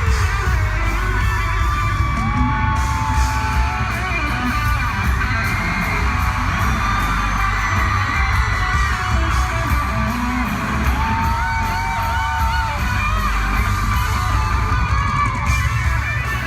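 Live pop-rock band music over a concert PA, heavy in the bass, with fans screaming and whooping close by.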